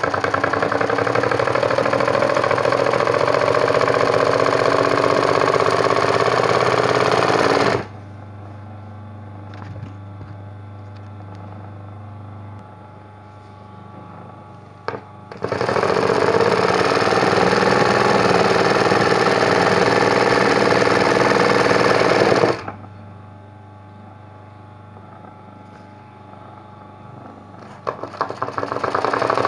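Sewing machine stitching fast in free-motion embroidery, running in long steady bursts: about eight seconds, a pause, about seven seconds more, a second pause, then starting up again near the end. In the pauses only a faint low hum remains.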